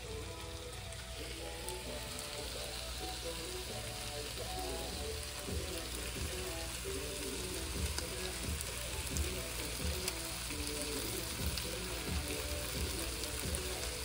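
Food sizzling and crackling in a frying pan, with background music playing over it.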